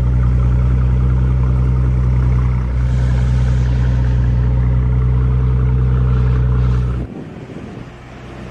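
Mercedes-Benz S65 AMG's 6.0-litre twin-turbo V12 idling, a steady low exhaust drone that cuts off suddenly about seven seconds in.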